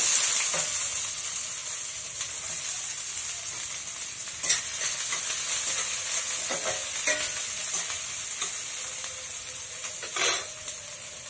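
Chopped onion and ginger frying in hot oil in a kadai: a loud sizzle that swells up at the start and slowly eases off. A spoon stirring the pan scrapes and knocks against it a couple of times.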